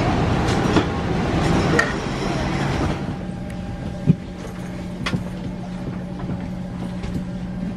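Boarding ambience in an Airbus A319 parked at the gate: a busy rushing hubbub at first, then from about three seconds in the steady hum of the cabin's air system with a low constant drone, broken by two sharp clicks.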